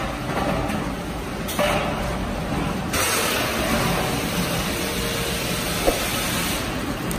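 Steel drum production line machinery running, a steady mechanical noise with a burst of compressed-air hiss from about a second and a half to three seconds in and a single sharp click near the end.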